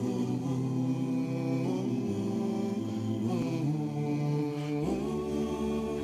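A cappella choir singing slow, held chords, moving to a new chord every second or two.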